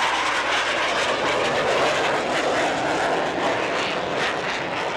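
Blue Angels F/A-18 Hornet jets flying over, a loud steady rushing jet noise that eases off slightly near the end.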